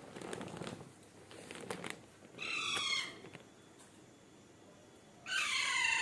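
A young Alexandrine parakeet calling twice: a short call about two and a half seconds in, and a longer call falling in pitch near the end. Soft rustling noises come before them.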